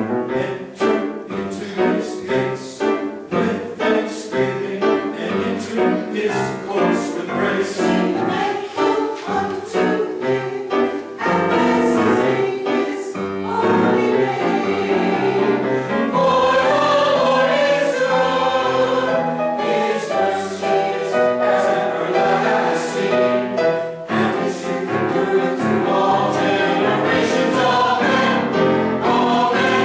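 Mixed church choir singing an anthem in parts, in short rhythmic syllables at first and then in longer held chords from about halfway through.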